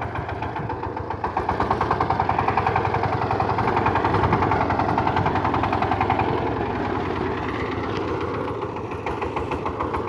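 KMW Kirloskar power tiller's single-cylinder diesel engine running with a rhythmic, pulsing beat as it pulls a heavy trailer load of hay. The engine gets louder about a second in and eases slightly near the end.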